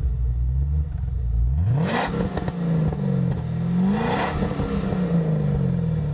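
Car engine revving hard: its pitch climbs sharply about two seconds in and again about four seconds in, each time with a brief noisy rush, then slowly falls away.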